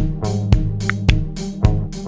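Intro music with a steady drum beat, bass and guitar.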